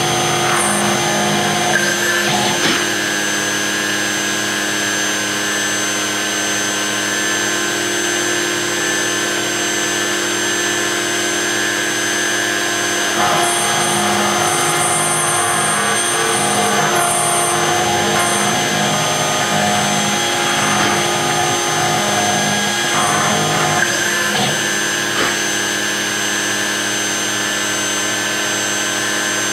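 6090 CNC router spindle running steadily with a fine tapered engraving bit carving detail into a metal coin blank. Through the middle of the cut the cutting noise turns harsher and higher for a few seconds.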